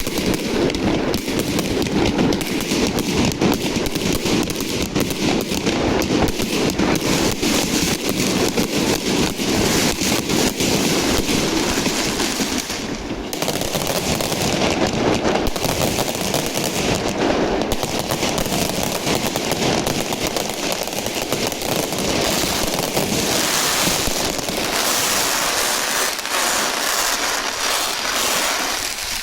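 Fireworks display in a dense barrage: rapid, overlapping bangs and crackling with no pauses, starting abruptly.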